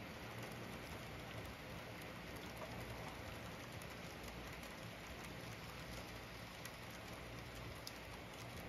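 HO-scale model trains running on the layout's track: a steady rolling whir with faint, scattered ticking of wheels over the rail joints.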